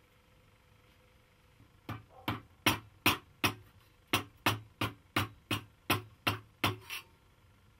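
Wooden mallet striking a bent brass tube section, shaping the bend. About a dozen quick, evenly spaced blows, roughly three a second, start about two seconds in, pause briefly midway and stop near the end.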